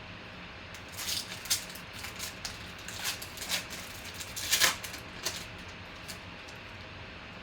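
Trading cards and their wrappers being handled: a run of irregular rustles and crinkles from about a second in until about five seconds in, loudest near the middle.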